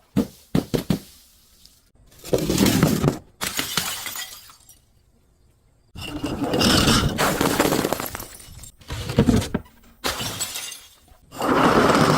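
Glass breaking and shattering in a series of crashes and crunches, several separate bursts with a short pause about halfway through.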